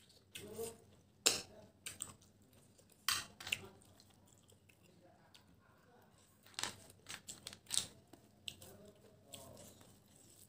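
Close-miked eating of rice and cooked snails: chewing, broken by several sharp, loud mouth sounds about a second in, about three seconds in, and a cluster between six and eight seconds in.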